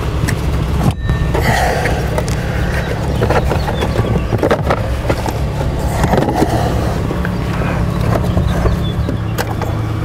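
Plastic clicks and scrapes of a multi-pin wiring connector being worked loose from a module under the dashboard, over a steady low rumble.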